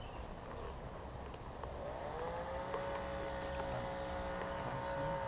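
An engine running, revving up about two seconds in and then holding a steady pitch.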